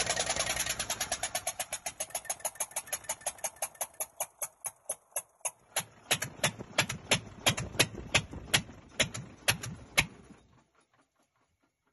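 Cummins N14 inline-six diesel engine with a faulty injector, making a regular train of sharp beats that gradually slows from several a second to about three a second, then stops near the end.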